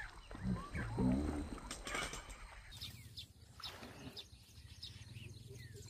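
Outdoor ambience with many short, high bird chirps from about three seconds in, over a steady low hum; a few louder low sounds come in the first second or so.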